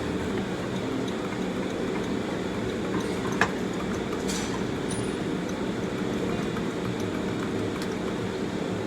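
Steady low mechanical rumble with a few light clicks, one sharper click about three and a half seconds in.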